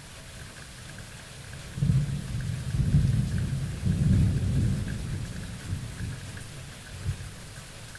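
Thunderstorm: steady rain falling, with a rolling clap of thunder that breaks suddenly about two seconds in, rumbles low in two swells and dies away, followed by a smaller low thump near the end.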